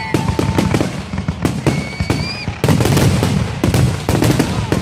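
Fireworks display going off in quick succession: a dense run of sharp bangs and crackles, with a brief high whistle about two seconds in.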